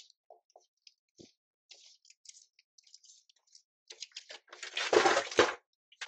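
Close handling noise at a video doorbell's microphone as a courier reaches it with a cardboard parcel: faint scattered ticks and scuffs, then loud rustling and crunching for about a second and a half near the end.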